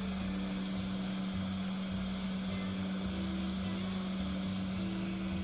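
A steady low electrical hum, with faint low tones underneath that shift in steps.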